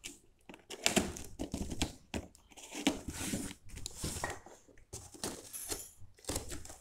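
Scissors slitting the packing tape along the seam of a cardboard box, with tape crinkling and tearing and cardboard rustling in irregular bursts.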